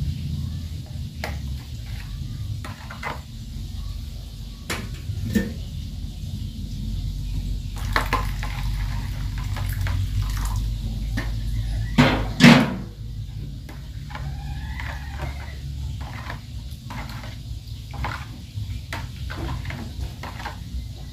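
Metal spoon clinking and scraping against a plastic bowl while stirring, with water poured in from an aluminium kettle partway through and one louder clatter about twelve seconds in.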